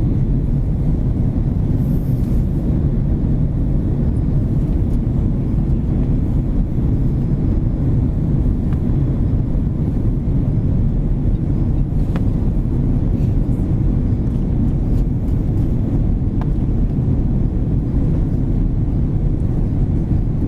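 Airbus A330-200 cabin noise on approach: a steady low drone of engines and rushing air, with a couple of faint clicks.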